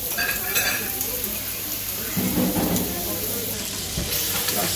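Köfte patties sizzling on a grill: a steady hiss like rain, with voices in the background.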